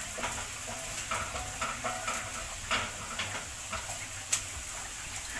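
Potato chips sizzling as they fry in hot oil, with a spoon clicking and scraping against a pot as it is stirred; one sharp knock about four seconds in.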